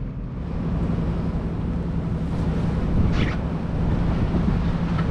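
Lake passenger boat under way: the engine runs with a steady hum under wind buffeting the microphone and water rushing past the hull, with a short louder rush about three seconds in.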